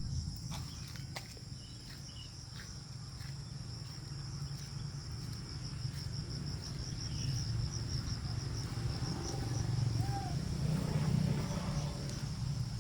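Insects trilling steadily in a high pitch, with a low rumble underneath that grows louder in the second half, and one short chirp about ten seconds in.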